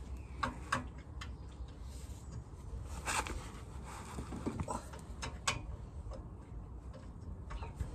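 Scattered light clicks and knocks of hand tools and metal parts being handled at a car's front brake caliper, irregularly spaced, with one sharper knock about three seconds in.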